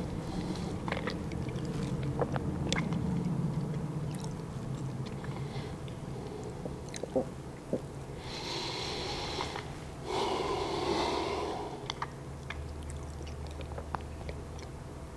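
A man's breathing and small mouth clicks against quiet room tone, with two audible breaths about eight and ten seconds in.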